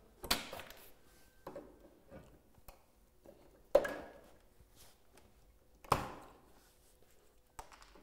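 Pliers pulling packaging staples out of a roof window's frame: three sharp clicks, about a third of a second in, near four seconds and near six seconds, with a few smaller ticks between them.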